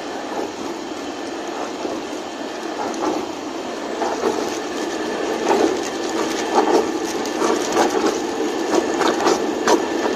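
Hanging-type chemical disperser running, its motor-driven steel shafts mixing liquid in a plastic bucket as powder is poured in. A steady mixing noise with irregular clicks and knocks that come more often in the second half.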